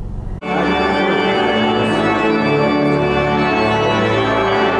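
Organ music playing sustained chords, starting abruptly about half a second in after a brief low rumble of a car cabin.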